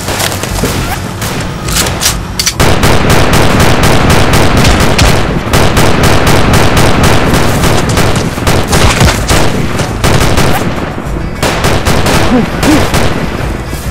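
Movie gunfire sound effects: rapid automatic fire from a truck-mounted heavy machine gun mixed with rifle shots, dense and continuous from about two and a half seconds in, easing briefly near the end.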